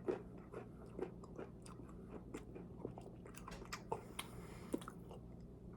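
Close-miked chewing: irregular wet mouth clicks and smacks, a few a second, as someone eats with the mouth working near the microphone.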